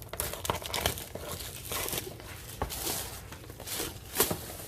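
Plastic shrink wrap crinkling and tearing as it is pulled at and peeled off a kit box, in irregular crackles.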